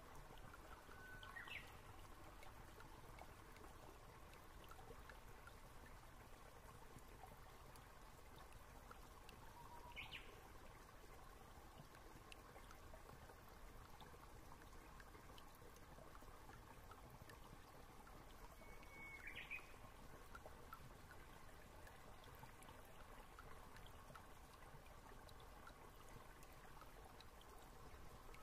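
Near silence: faint room tone, broken three times by a short, faint rising chirp, about nine seconds apart.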